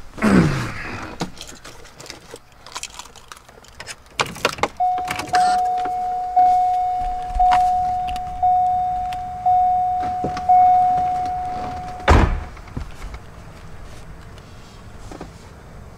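Corvette C5 warning chime dinging about once a second, seven times, with the key in the ignition, then a car door thumps shut about twelve seconds in and the chime stops at once, as a door-open reminder does. A few clicks come just before the chime starts.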